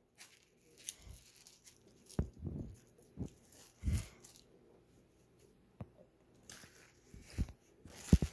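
Fried chicken wings being handled in a paper-lined basket: scattered short crinkles of the paper and tearing, biting noises, a second or so apart.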